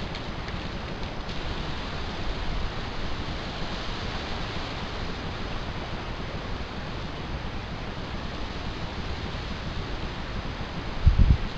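Steady hiss of outdoor background noise, like wind on a microphone, with a short low thump near the end.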